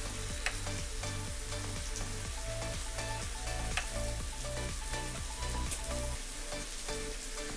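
Steady sizzle of a grilled cheese sandwich and onions frying in a skillet, with a few light clicks of a spoon against a glass bowl. A low pulsing beat runs underneath and stops about six seconds in.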